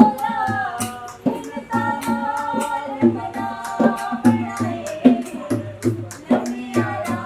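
A voice singing a folk-style song over a hand-played barrel drum beating a steady rhythm of about two strokes a second.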